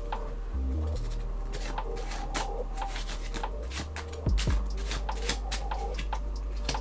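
Tarot cards being shuffled by hand: a run of quick, irregular papery flicks and slides of card on card. A louder soft thump comes a little past halfway.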